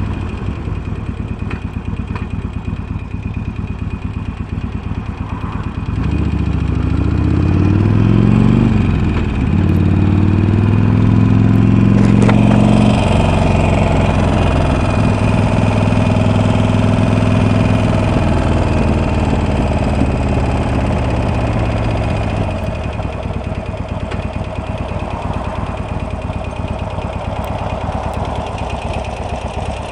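Harley-Davidson Sportster Iron's air-cooled V-twin, fitted with Screamin' Eagle slip-on exhausts, running: it idles, picks up speed in steps about six seconds in, holds higher for several seconds, then drops back to a steady idle near the twenty-second mark.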